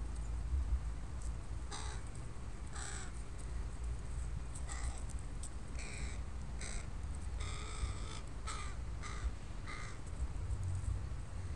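Young carrion crow cawing: a run of about nine short caws starting about two seconds in, several coming in quick succession near the middle.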